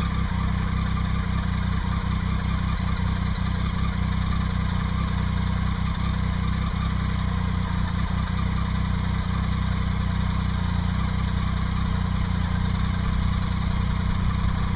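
A vehicle engine idling steadily: a low, even hum that holds unchanged throughout.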